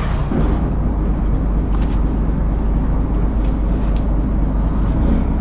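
Fishing boat's engine running steadily with a heavy low drone, and a few faint clicks over it.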